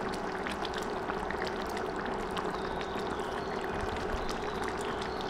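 Chicken korma gravy simmering in the pan: a steady bubbling with many small pops, over a faint steady hum.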